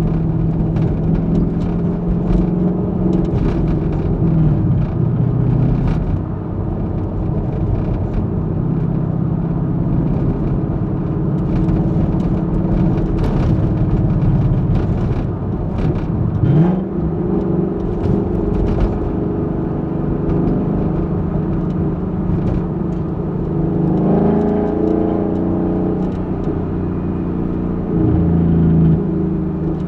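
Exhaust of a 2021 Ford Mustang GT's 5.0-litre V8, picked up close from the trunk, running at a steady engine speed while driving. The pitch rises in a quick burst of throttle about halfway through and again in a shorter pull a little later.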